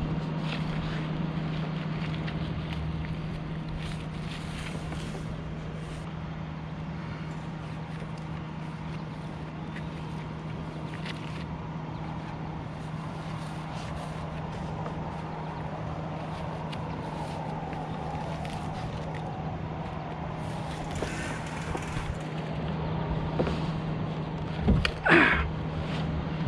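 Aerial bucket truck's engine running steadily at idle to power the boom hydraulics, a constant low hum. A few sharp clicks and knocks sound over it, the loudest just before the end.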